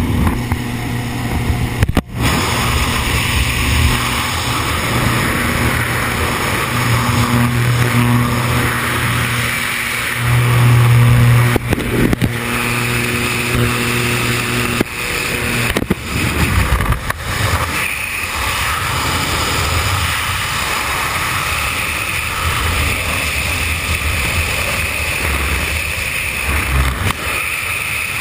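Small jump plane's engine and propeller droning steadily under a rush of wind at the open door; a little over halfway through the engine drops away and the steady roar of freefall wind takes over.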